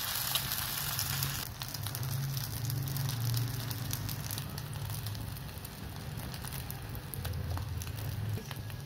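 Egg-coated sandwich frying in hot oil in a pan: a steady sizzle with many small crackles and pops, strongest in the first second and a half and then settling, over a low hum.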